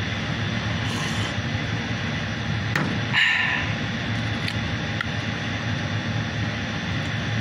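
Steady machinery hum with a low drone. About three seconds in there is a short breathy exhale after a sip of coffee.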